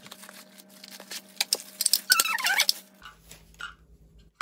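Small cardboard box being handled and opened, with rustling and scraping, scattered clicks, and a brief squeak of packaging rubbing about two seconds in.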